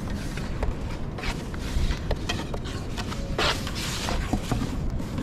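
Long thin wooden rolling pin rolling thin flatbread dough out on a round wooden board, with scattered light clicks and knocks of the pin against the board and a short scuffing hiss about three and a half seconds in. Wind rumbles on the microphone underneath.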